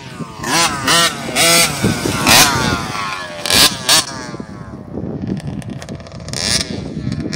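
Small dirt bike engines revving on a motocross track, their pitch climbing and falling with the throttle. Several loud, sharp revs come in the first four seconds, then one more shortly before the end.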